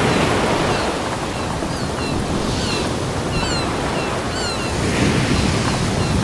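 Ocean waves washing onto a beach, a steady surf wash that swells again about five seconds in. Short high chirps sound several times over it in the first part.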